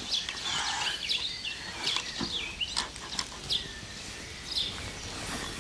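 Birds chirping and calling in short, quick rising and falling notes over a steady outdoor background hiss, with a few faint clicks.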